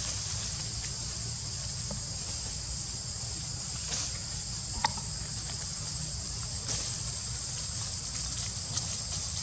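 Steady high-pitched insect chorus, with a low rumble beneath it and one sharp click about five seconds in.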